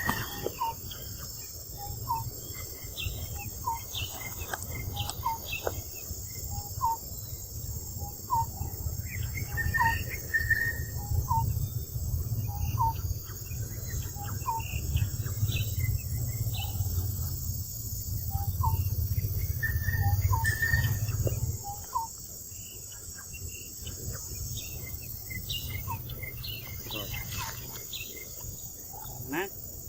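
Steady high-pitched chorus of insects, crickets or cicadas, with short chirps repeating about once a second. A low rumble runs underneath and stops about two-thirds of the way through.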